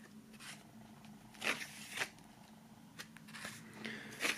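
Pages of a glossy CD booklet being turned by hand: a few soft paper swishes and rustles, the loudest about a second and a half in.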